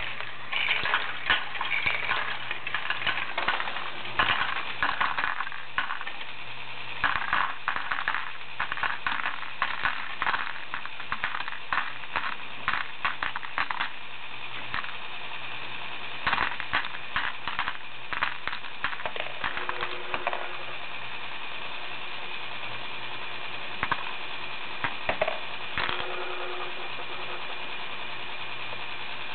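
Lego Technic 42055 bucket wheel excavator running on its electric motor with a steady hum, while small plastic Lego pieces clatter and click off the end of its conveyor into a plastic tray. The clattering is dense for the first twenty seconds, then thins to a few scattered clicks.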